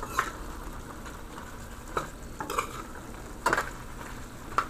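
Beef and potatoes sizzling in a pot while a utensil stirs, with about five short scraping knocks against the pot.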